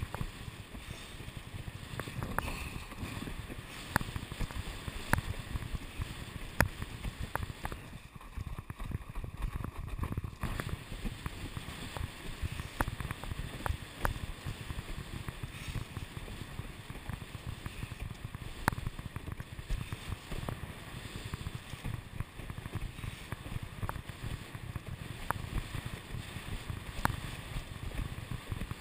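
Windsurf board planing over choppy water: a steady rush of water and wind buffeting the mic, with frequent sharp slaps and knocks as the board's hull hits the chop. The rush drops briefly about eight seconds in.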